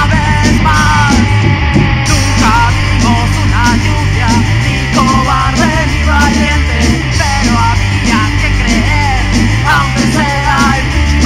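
Punk rock song: distorted electric guitar, bass and drums with shouted vocals over them.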